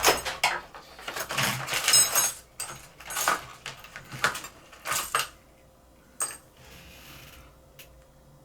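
Small metal lighter parts clicking and clinking as they are handled, with a quick run of taps and light rattles for about five seconds, then two single clicks.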